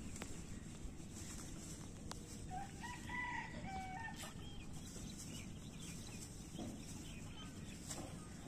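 A rooster crowing once, about two and a half seconds in, a single call of about a second and a half that rises, holds and drops at the end.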